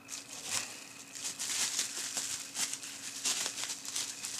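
Plastic bubble wrap crinkling and crackling as it is handled and lifted out of a cardboard box. A dense run of crackles, loudest in the middle.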